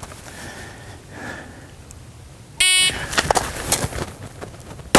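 Shot timer's start beep, one loud electronic tone lasting under half a second, about two and a half seconds in. Scuffing on gravel follows as the shooter draws from the holster and drops to one knee. A single pistol shot cracks right at the very end, about 2.4 seconds after the beep.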